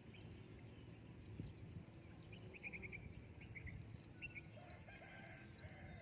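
Faint village ambience: a small bird chirping in a quick run of short high notes in the middle, then a few single chirps, and a chicken clucking near the end, over a low background rumble.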